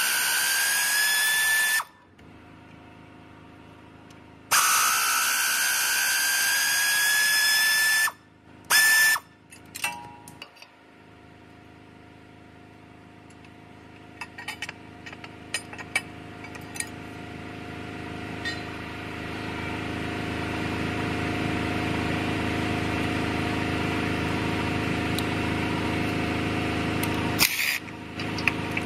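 Power ratchet spinning a socket on the starter bolts of a 2015 Ram 1500: two runs of a motor whine that rises slightly in pitch, then a short blip. After that come scattered clicks of tool handling, and a steady hum builds up through the second half.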